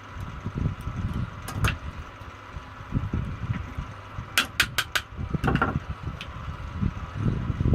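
Hands-on repair work on a semi-automatic box strapping machine: irregular low knocking and handling rumble, with sharp clicks, a quick run of four near the middle, over a faint steady hum.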